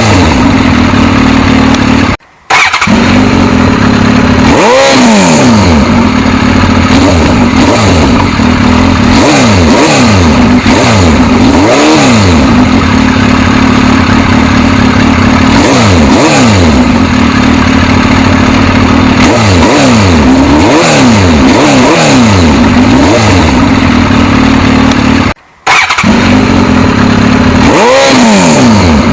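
Suzuki GSX-S1000's inline-four engine idling with repeated throttle blips, the revs rising and falling again about half a dozen times. The sound drops out for a moment twice, about two seconds in and near the end.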